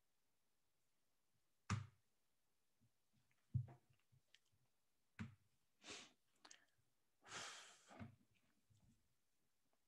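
Near silence broken by a few faint, scattered clicks and knocks, and a soft breath-like rush lasting under a second about seven seconds in.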